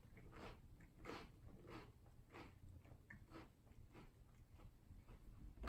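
Faint, steady rhythm of a person chewing crunchy cookie cereal in milk, a soft crunch every half second or so.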